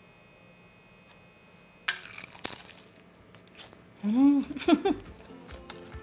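A bite into crispy, double-fried Korean market-style chicken: a quick cluster of crackling crunches about two seconds in, then quieter chewing. A short vocal sound comes about four seconds in.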